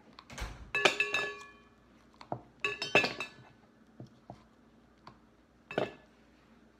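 Ice cubes popped from a silicone tray and dropped into a stainless steel tumbler, clinking against the metal with a short ringing tone. The clinks come in two clusters about a second and three seconds in, followed by a few lighter single knocks.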